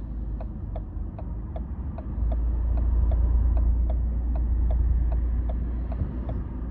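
A car's turn-signal indicator ticking evenly, about two and a half ticks a second, signalling a turn, over a low rumble of engine and traffic that swells through the middle as a vehicle passes.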